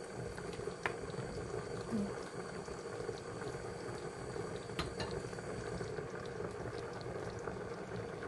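Coconut-milk goat curry bubbling steadily at the boil in a metal pot, with a couple of light clicks of a spoon against the pot.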